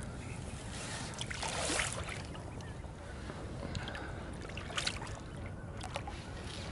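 Water splashing as a large pike is lowered into shallow lake water and released: a louder splash about one and a half seconds in, then a few short sharp splashes about five seconds in, over a steady low wind rumble on the microphone.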